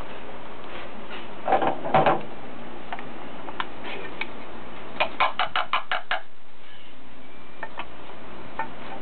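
Small clicks and paper rustling from a hamster scrabbling on newspaper. There is a louder rustling scuffle about one and a half seconds in and a quick run of about eight clicks midway.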